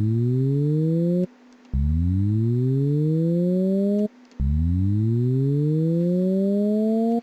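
Synthesized motorbike throttle-twist sound from Ableton Live's Operator synth, its oscillator set to a Saw 3 wave and shaped by a pitch envelope: three buzzy tones, each gliding upward in pitch and cutting off sharply, with short gaps between them. It is a first attempt that does not yet sound like a real big bike.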